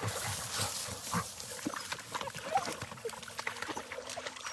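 Labrador retrievers splashing and moving about in a shallow water hole: irregular short splashes and scuffles, busiest in the first second.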